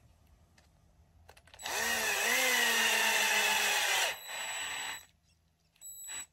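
Cordless drill spinning a threaded RC crawler suspension link held in a T-handle rod-end tool. The drill starts with a rising whine almost two seconds in and runs steadily for about two and a half seconds. It then runs more softly for about another second before stopping.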